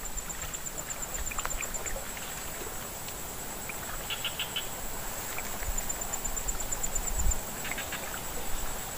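Waterside outdoor ambience: a steady high-pitched insect whine that pulses quickly at times, a few short animal chirps about four seconds in and again near the end, and a low rumble of wind on the microphone shortly after seven seconds.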